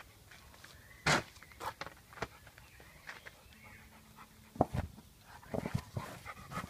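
A dog panting while nosing a ball about, with a scatter of short sharp knocks and scuffs; the loudest comes about a second in and a cluster follows in the second half.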